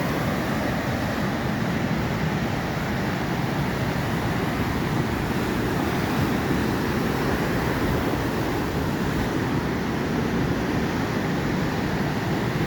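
Ocean surf washing steadily: an even, unbroken rush of breaking waves.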